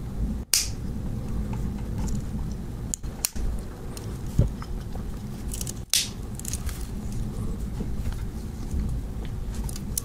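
Several sharp metal clicks as the tools of a Victorinox Farmer X Alox Swiss Army knife are opened and snapped shut on their springs, a few seconds apart, over a low steady rumble.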